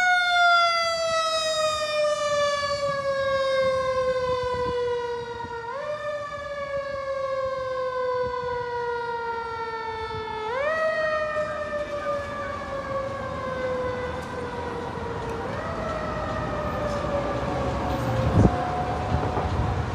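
Fire engine siren wailing, its pitch sliding slowly down and pushed back up three times, about every five seconds, growing fainter as the engine drives off. A short knock near the end.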